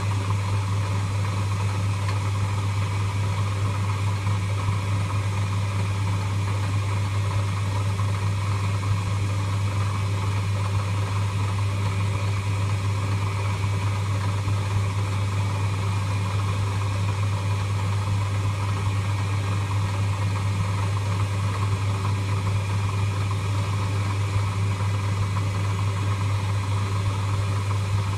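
Electric motor of a workshop machine running steadily with a strong low hum and a steady whirr, unchanging throughout.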